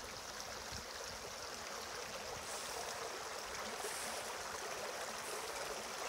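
A small creek running, a steady rush of water.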